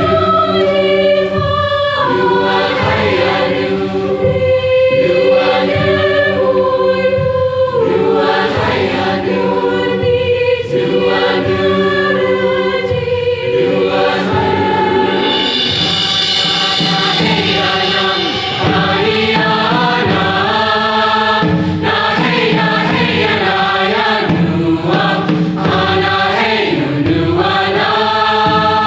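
A choir singing, holding chords that change every second or two.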